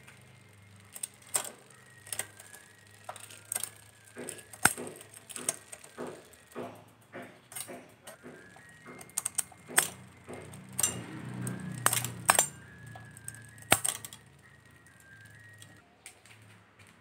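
Irregular sharp metallic clicks and clacks from a vintage road bike's drivetrain being worked by hand: the downtube shift levers are moved and the chain shifts across the freewheel cogs.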